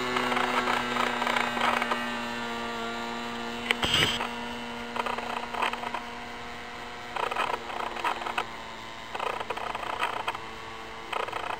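Titan ZG20 20 cc two-stroke petrol engine of a Piper J3 Cub model airplane droning in flight, its pitch dropping slightly at first and then holding steady as it fades into the distance. Irregular bursts of noise and a sharp click about four seconds in sit over it.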